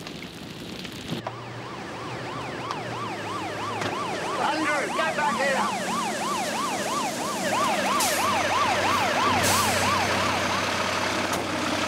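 Fire engine siren on a fast repeating wail, each rising sweep lasting about a third of a second, starting about a second in. The engine runs underneath, and there are two short hisses near the end.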